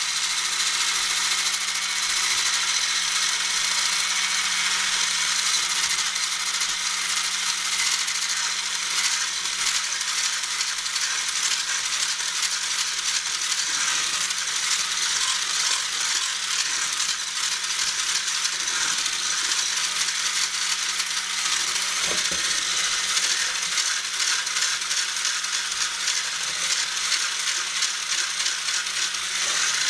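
Hand-held electric whisk running steadily while beating eggs, sugar and butter into cake batter, its whisk rattling against a stainless steel saucepan. There is a single knock about two-thirds of the way through.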